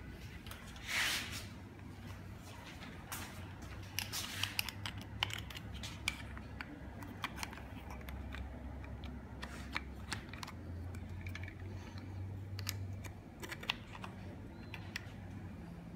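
Small plastic clicks, taps and scrapes as a plastic bike phone mount's clamp is handled and fitted around a handlebar, with a short rustle about a second in.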